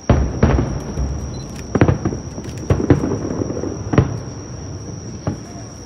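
Aerial fireworks shells bursting over the bay: a string of about seven booms, each followed by a rumbling echo, with the loudest near the start, about two seconds in and about four seconds in.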